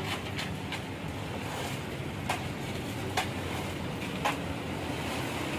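Concrete mixer truck running during a concrete pour: a steady rushing noise, with three sharp knocks about a second apart midway.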